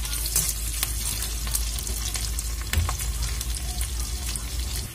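Sliced onions and dried red chillies sizzling in hot oil in a kadai as they fry towards browning, with scattered clicks and scrapes of a metal slotted spatula stirring them.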